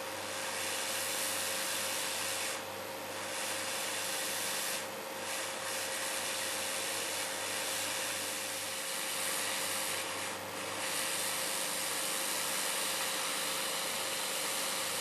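Hot air rework station blowing steadily while desoldering a small surface-mount transistor from a circuit board: an even airflow hiss with a constant hum-like tone, dipping briefly about three times.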